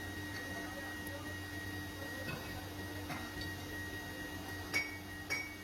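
Factory machinery running with a steady hum and a thin constant high whine, a few faint ticks, and two sharp metallic clinks near the end.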